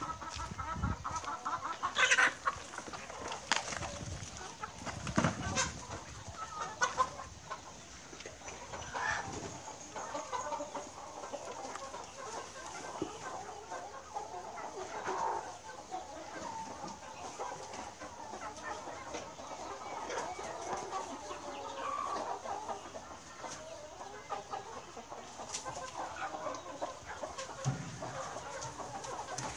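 A flock of chickens clucking and calling continuously, with a few louder squawks in the first several seconds.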